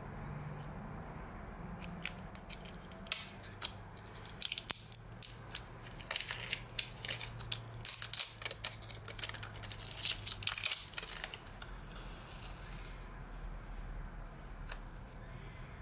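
Washi tape being picked loose and peeled off its roll: a run of dry crackles and ticks, densest from about six to eleven seconds in, then it eases off.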